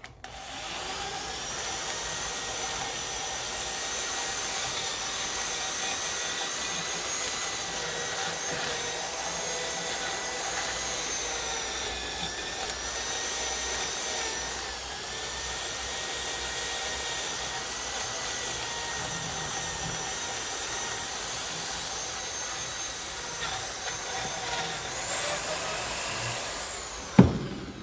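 Motorised wire brush running steadily as it cleans rust and dirt off a tractor water pump casting, its whine dipping slightly under load partway through. It winds down near the end, with a sharp knock just before it stops.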